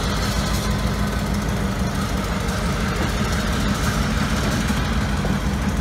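EMD GP38-2 locomotive's 16-cylinder two-stroke diesel running steadily as the locomotive rolls slowly past.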